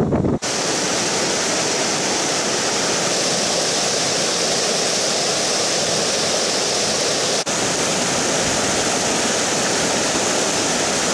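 Mountain stream rushing and splashing over boulders: a steady, loud rush of white water, broken only by a brief dip about seven seconds in.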